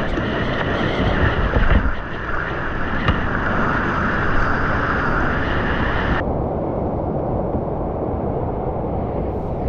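Rushing whitewater of a steep creek, a loud steady rush heard from the kayak, with paddle strokes in the water. About six seconds in the sound suddenly turns muffled and duller.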